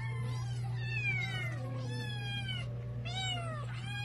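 Several hungry cats meowing over one another, their calls overlapping almost without pause as they beg for food. A steady low hum runs underneath.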